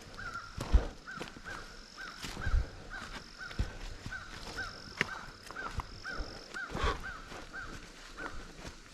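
A bird calling in a steady series of short, arched notes, about two a second, over a hiker's footsteps. A thin high tone comes and goes above it.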